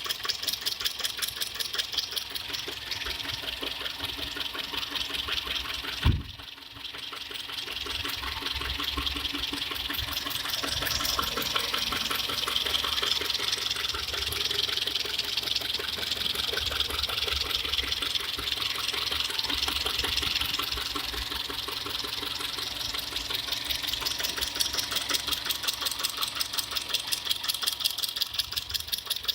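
Car engine running with a steady rapid pulse. About six seconds in there is a single loud, sharp knock; the engine sound drops for a moment and then builds back up. This is the knock the owner gets when the throttle is floored sharply.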